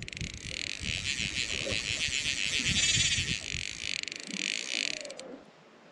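Fly reel's clicker drag ratcheting as the spool turns while a trout is played on the line: a rapid, pulsing run of fine clicks that cuts off suddenly near the end.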